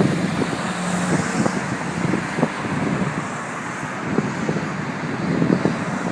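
Steady rushing outdoor noise with irregular low thumps, typical of gusty wind buffeting the microphone.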